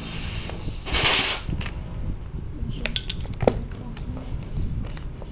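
Screwdriver and small steel screws being worked out of a scooter wheel's hub-motor cover: a short scraping rush about a second in, then a few sharp metallic clicks.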